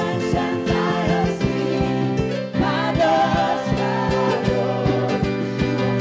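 Live gospel worship music: a band playing sustained chords with a steady drum beat, with a wordless sung or vocal line over it.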